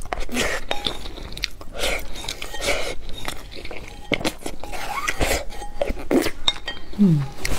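Close-miked eating sounds of a person chewing a mouthful of rice with egg, with wet mouth noises and sharp little clicks at irregular moments.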